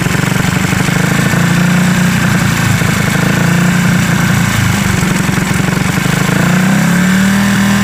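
Small single-cylinder motorcycle engine running steadily at a raised fast idle, set to roughly 3000–4000 RPM for carburetor tuning. Its speed rises a little near the end as the carburetor screw is adjusted.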